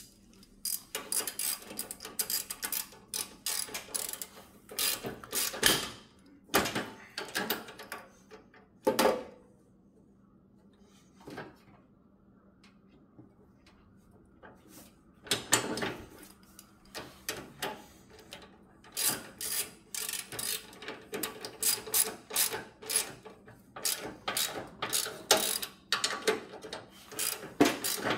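Irregular runs of sharp metallic clicks and rattles from work on a Murray riding mower's deck lift lever assembly, with a quiet pause in the middle.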